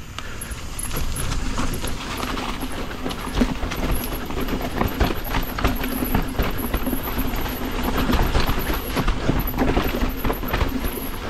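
Yeti SB150 full-suspension mountain bike ridden over a rough dirt trail: knobby tyres rumbling over the ground and a constant, irregular rattle and clatter from the bike as it takes the bumps.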